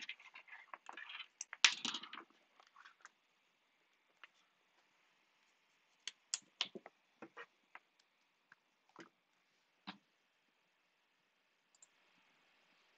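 Irregular clicks and taps of someone working at a computer desk. They come in a dense cluster over the first two seconds or so, then as single clicks spaced out until about ten seconds in, followed by a faint hiss near the end.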